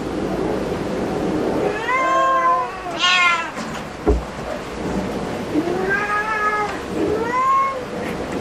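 A domestic cat meowing four times, the calls rising and falling in pitch, the second short and high, the third longer and lower. A single thump about four seconds in.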